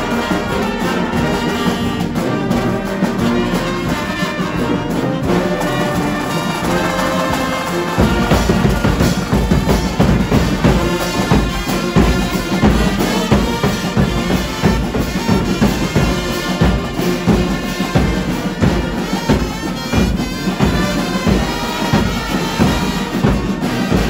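Brass band playing a tune. About eight seconds in, a heavy low beat joins and keeps a regular pulse.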